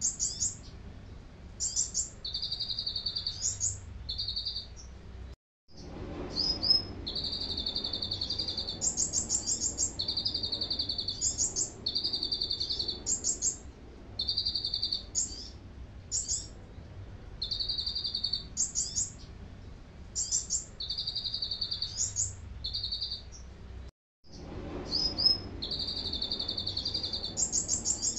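Kolibri ninja sunbird singing canary-style song: rattling rolls held for about a second alternate with quick rising trills, the phrases repeating over and over. The sound cuts out completely twice, about five seconds in and about four seconds before the end.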